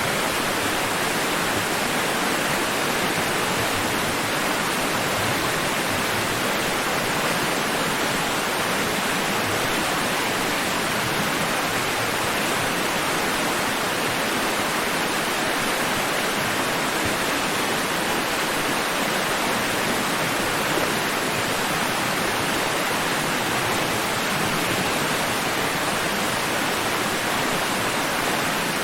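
Rushing water in a steady, unbroken wash, with no distinct swells or breaks.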